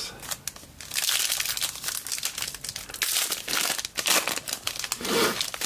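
A trading-card pack's wrapper being torn open and crinkled by hand, in a dense run of crackling rustles.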